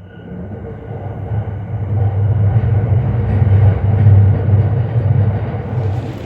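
Low vehicle rumble that builds over the first couple of seconds, holds strongly and eases off near the end.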